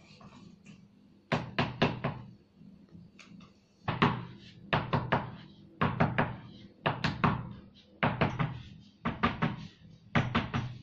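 A rhythmic series of sharp knocks, in quick clusters of two or three about once a second, over a low steady hum.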